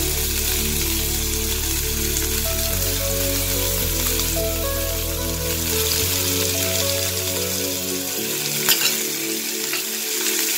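Raw chicken pieces sizzling in hot oil with garlic, ginger and green chillies in a nonstick kadai, a steady hiss; a couple of sharp clicks near the end. Soft background music with held notes plays underneath.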